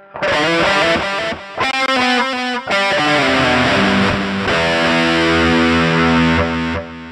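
Electric guitar played through a Line 6 UX2 interface and GearBox amp-modelling software on an 'American Punk' overdriven preset with digital delay: a busy run of picked notes, then a chord held and ringing for about four seconds.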